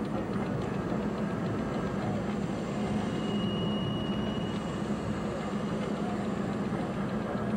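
Car engine and tyre noise heard from inside the moving car, a steady drone.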